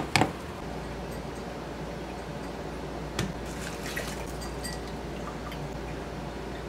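Coffee grounds tipped from a cup into a mesh pour-over filter cone on a glass carafe: two sharp knocks at the start, then soft handling sounds with a light tap about three seconds in.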